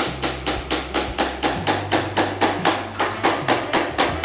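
Steel hammer driving a nail into the wooden base plate of a newel post, in rapid, even strikes about four a second.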